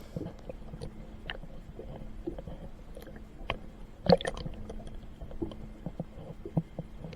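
Small boat on the water: light knocks and water sounds against the hull, with one louder knock about four seconds in, over a faint steady hum.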